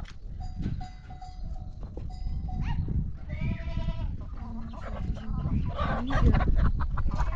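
A flock of livestock bleating, with one long, clear bleat about three seconds in, over a low rumbling background.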